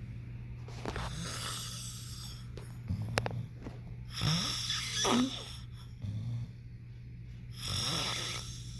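Snoring: three slow, rasping breaths about three seconds apart, with a falling whistling wheeze near the middle.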